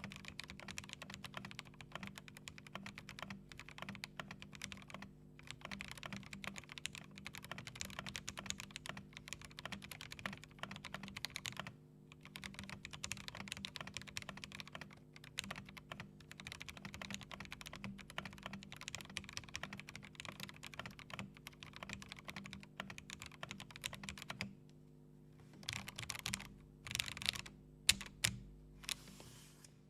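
Mechanical keyboard with lubed Akko CS Jelly White linear switches being typed on fast, a dense run of keystroke clacks. After a short pause near the end come a few separate, louder keystrokes. A faint steady hum lies beneath.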